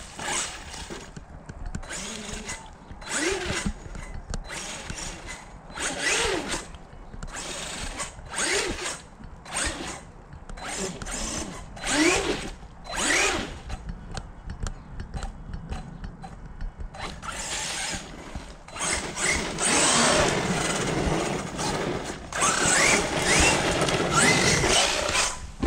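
Electric RC monster truck driven in repeated short bursts of throttle, its motor whining upward in pitch with each burst. Near the end come two longer, noisier runs a few seconds each.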